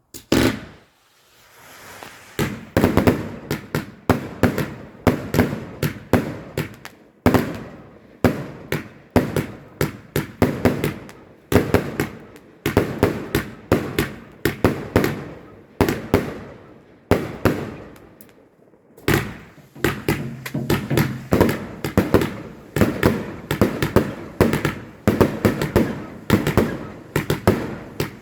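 The final firework of a garden display, a multi-shot firework, firing a rapid string of sharp bangs and crackles. It starts suddenly with one bang, pauses briefly, then keeps firing in dense volleys, with a short lull about two-thirds of the way through.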